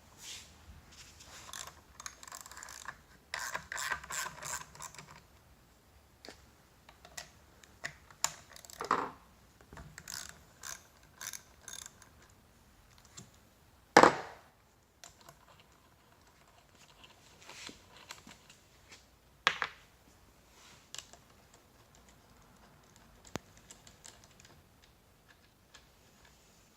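Socket ratchet clicking in short runs while the rear axle nuts of a Dualtron electric scooter are loosened, with scattered clinks of tools and metal parts. One sharp, loud knock comes about halfway through.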